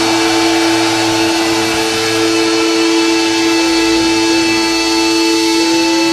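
Distorted electric guitar holding two sustained notes with feedback; the upper note is bent three times about midway and slides upward near the end.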